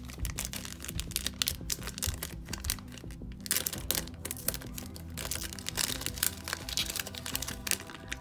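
Background music over plastic packaging crinkling repeatedly as it is handled and opened by hand.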